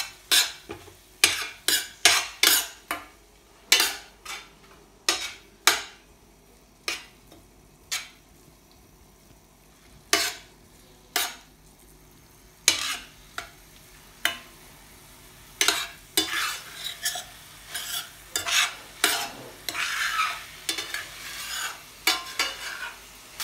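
Metal spatula stirring vegetables in a stainless steel pan, clinking and scraping against the metal at irregular intervals, over a soft frying sizzle. The clinks thin out in the middle and turn to quicker, rougher scraping in the last several seconds.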